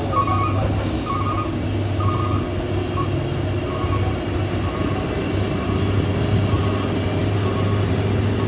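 Heavy truck engine running with a steady low drone, while a series of short, high beeping tones repeats about every half second, fading somewhat after the first few seconds.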